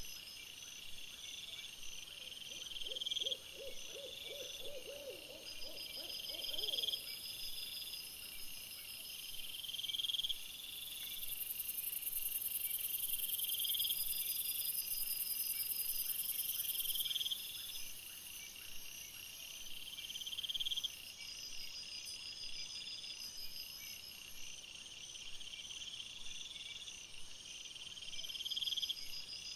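Night-time chorus of calling animals: a steady high chirping typical of night insects, a short high call repeating about every two seconds, and a brief fast series of lower-pitched pulses a few seconds in.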